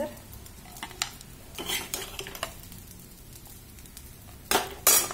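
Metal spatula scraping and knocking against a stainless steel kadhai while scooping out cooked poha, in a few separate strokes, with the loudest pair near the end.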